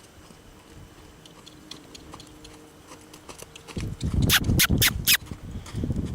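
A horse moving close by: about four seconds in, its hooves strike hard ground four times in quick succession over a low rumble of movement, after a few faint seconds.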